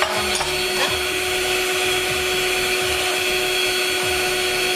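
Electric mixer running with a steady motor whine, whipping egg whites to stiff peaks.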